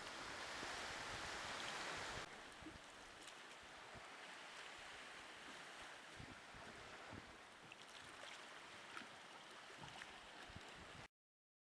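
Seawater lapping and gurgling around a kayak, with scattered small splashes. A louder hiss for the first two seconds stops abruptly, and the sound cuts out to dead silence near the end.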